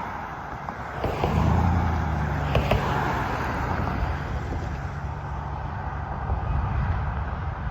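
A vehicle engine running with a steady low hum that comes in about a second in and holds, with a few faint clicks.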